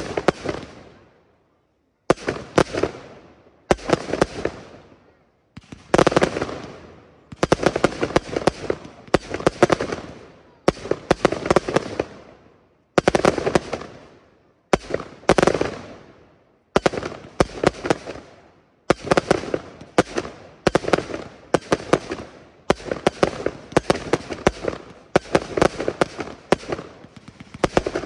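Aerial fireworks bursting one after another, each a sharp bang followed by a fading crackle. The bursts come every second or two at first and run together almost without a break in the second half.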